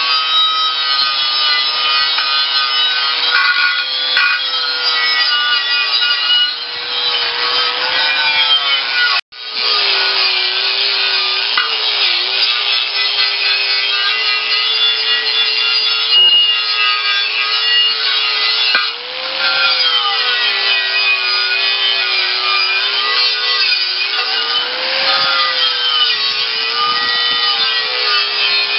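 DeWalt angle grinder with an abrasive disc grinding rust and paint off a steel tractor rim: a steady, loud motor whine with a scraping rasp, its pitch sagging when the disc is pressed into the metal and rising again as it eases off. It breaks off for a moment about nine seconds in.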